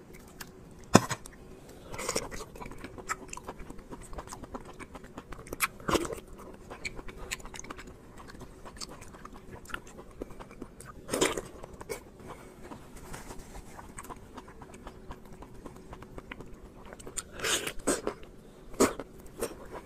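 Close-miked eating sounds: a person biting, sucking on and chewing a slippery, translucent gelatinous food soaked in sauce, soft wet clicks throughout with a few louder smacks and slurps spread through.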